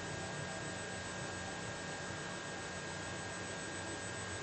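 Steady electrical hum and hiss with a faint high, steady whine: the background noise of the voice-over recording between sentences.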